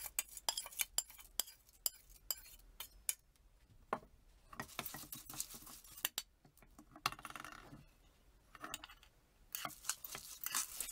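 Wet sunflower seeds tipped into an aluminium saucepan and stirred with a metal spoon: scattered clicks and clinks of the spoon on the pan, with a few short bouts of rattling seeds, separated by brief pauses.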